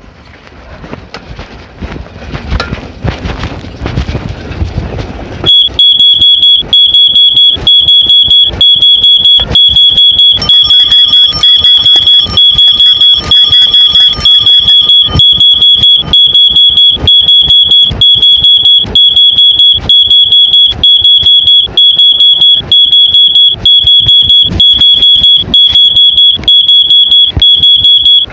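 Wind and riding noise, then from about five seconds in a loud, shrill electronic alarm beeping rapidly and without a break.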